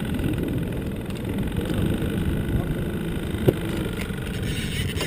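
Boat motor running steadily at trolling speed, a low even rumble, with one sharp knock about three and a half seconds in.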